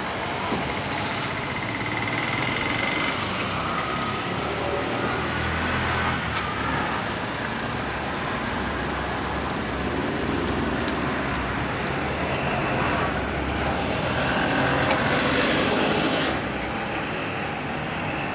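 Street traffic noise: a steady wash of passing vehicles, swelling for a couple of seconds late on as one passes closer.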